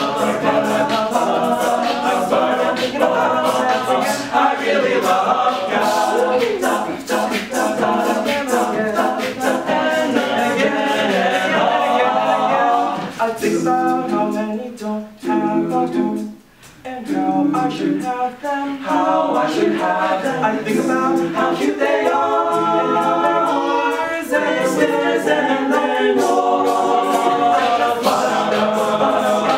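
Male a cappella ensemble singing in close harmony over a steady percussive beat. The voices drop out briefly about halfway through, then come back in.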